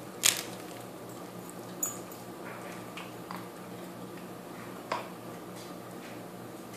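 A few short, sharp clicks or taps, the first and loudest just after the start, another near two seconds in and one near five seconds, over a steady low hum.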